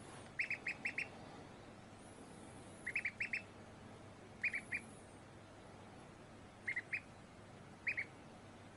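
Duckling peeping: short, high peeps in quick clusters of two to five, the clusters coming every second or two.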